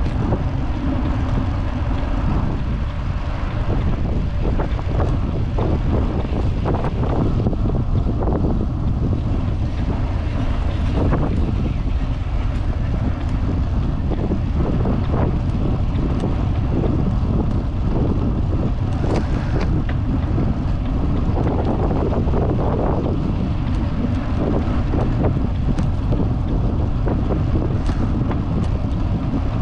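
Wind buffeting a handlebar-mounted action camera's microphone on a moving vintage road bicycle, with steady tyre rumble and frequent short knocks and rattles from the rigid, unsuspended bike going over bumps in the trail.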